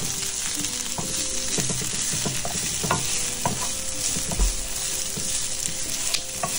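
Sliced onions and bell peppers sizzling in oil in a nonstick frying pan, with a wooden spoon stirring them and knocking against the pan in scattered taps.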